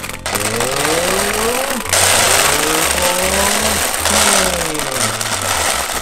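Gumballs pouring and rattling into a plastic gumball-machine globe, loudest in the middle, over background music with a steady bass beat and sliding tones.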